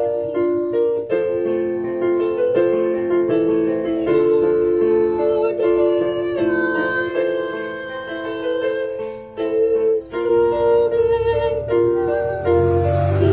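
Electronic keyboard playing a slow melody over chords, with notes held long, a brief dip in loudness a little after nine seconds in.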